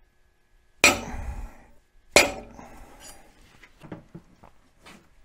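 Hammer striking a steel transfer punch twice, about a second and a half apart, each blow with a metallic ring: the punch is marking drilled hole positions onto a second steel piece. A few faint clicks and knocks follow near the end.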